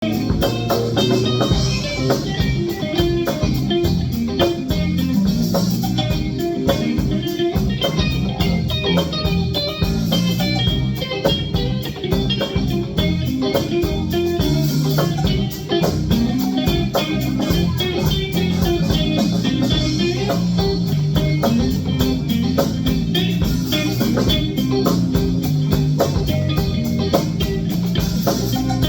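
A live band playing, with guitar and bass guitar over a steady beat.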